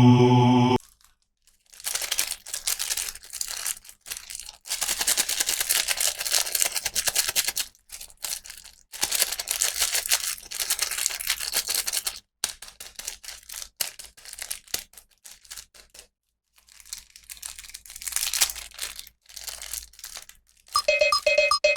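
Toy packaging being unboxed: crinkling and tearing in irregular bursts with brief pauses. A tune starts near the end.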